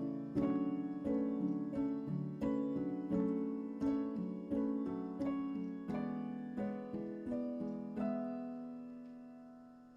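Gentle solo piano music: a run of light, evenly paced notes, ending in a held chord about eight seconds in that slowly fades away.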